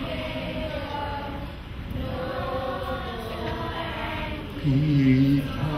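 A crowd of schoolchildren and adults singing Anguilla's national song together. The singing gets louder about four and a half seconds in.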